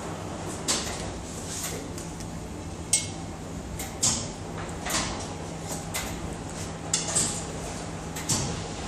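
Scattered sharp knocks and clinks, as damp laundry is pulled out of the steel drum of a stainless-steel spin dryer and dropped into a plastic basket, over a steady low machine hum.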